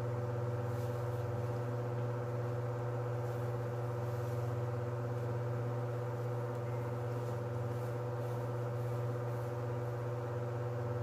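Steady low machine hum with a few fainter steady higher tones, even in level throughout, as from an appliance running in a small room.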